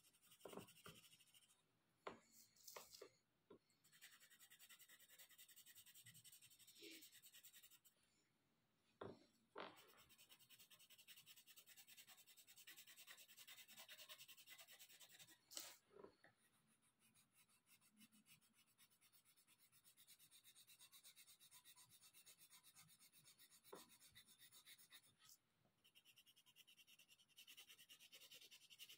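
Faint scratching of a coloured pencil shading back and forth on paper in quick strokes, stopping briefly a couple of times, with a few soft knocks of the hand and pencil on the table.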